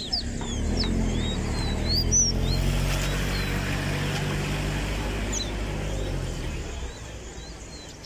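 A motor vehicle's engine hum swells up in the first second, holds steady, then fades out near the end. Over it come short, rising chirps from caged songbirds, several in the first couple of seconds and a few later.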